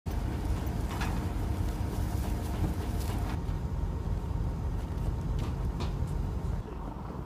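Low, steady rumble of heavy machinery running, with a few short knocks; it eases near the end.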